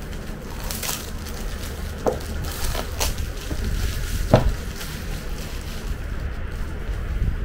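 Handling noise from a cardboard phone box being turned and laid flat on a wooden table while plastic film is pulled off it: rustling with a few light knocks, the loudest about four seconds in, over a steady low hum.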